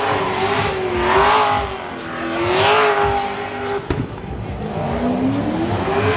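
A car engine revving hard in waves, its pitch rising and falling about every second and a half over tyre squeal, as in a burnout. It drops about four seconds in, then climbs slowly again.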